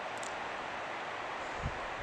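Steady outdoor background hiss in open desert canyon country, with a soft low bump near the end.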